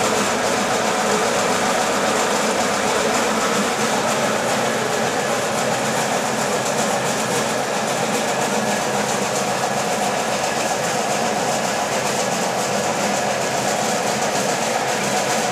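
Coffee-bean sorting sieve machine running steadily: an electric motor driving a large pulley by V-belt to shake the sieve screen.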